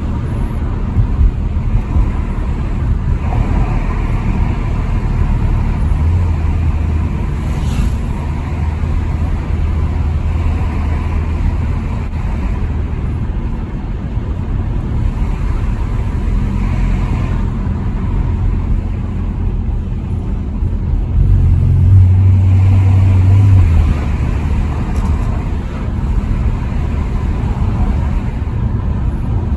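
Dodge Challenger driving, engine running steadily with road noise. The engine note grows louder for about two seconds roughly three-quarters of the way through.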